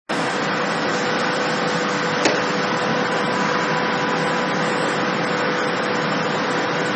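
Industrial machinery running with a steady hum and noise, with one sharp click a little over two seconds in.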